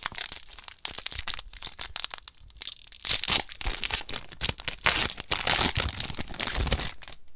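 Magic: The Gathering booster pack's foil wrapper crinkling and tearing as the pack is ripped open, a dense run of crackles and rustles that stops suddenly near the end.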